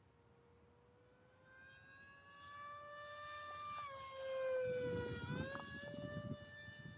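Brushless electric motor and three-blade 5x4.5 propeller of an Eclipson Helix RC plane whining in flight. The whine grows louder as the plane comes closer, dips in pitch as it passes near the middle, then climbs again. A low rushing noise comes in under the loudest part.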